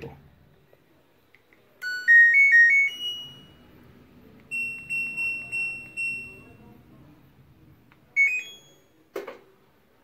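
Electronic beeps from an LG washing machine's control board. A short rising power-on melody plays, then a run of high button-press beeps and a brief rising chirp, and a single click comes near the end.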